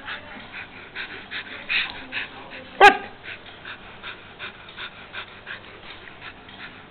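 Alaskan Malamute puppy panting in quick, even puffs, about three a second, with one short, sharp yip about three seconds in.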